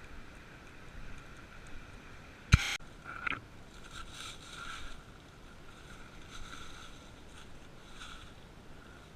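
Creek water running steadily, with one sharp knock about two and a half seconds in and a smaller one just after.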